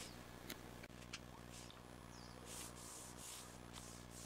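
Faint rustling and sliding of a sheet of A4 paper being folded and creased by hand, with a few soft ticks, over a low steady hum.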